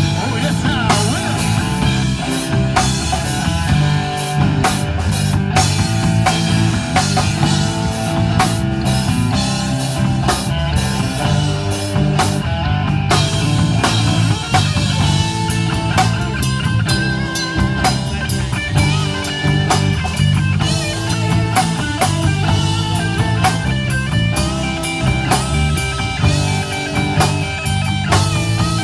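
Live rock band playing an instrumental passage: electric guitars over bass guitar and a drum kit.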